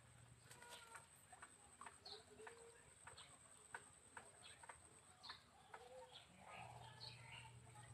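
Near silence: faint outdoor ambience with short distant bird calls and scattered small clicks over a thin, steady high-pitched tone.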